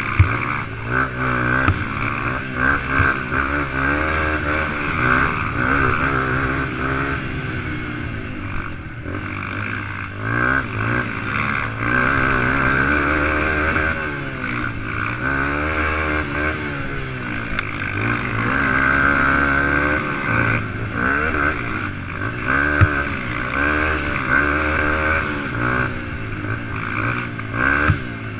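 Racing ATV engine heard from onboard, its revs rising and falling over and over as the rider works the throttle and shifts along the trail.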